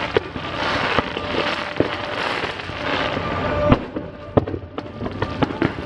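Aerial fireworks going off: a dense crackling with sharp bangs scattered through it, the loudest about three and a half seconds in.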